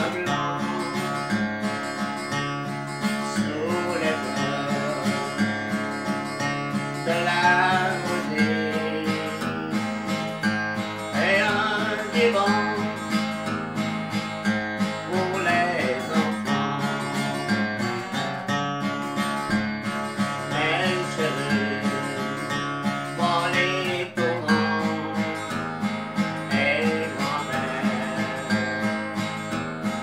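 A man singing a French song, accompanying himself on a strummed Crafter acoustic guitar.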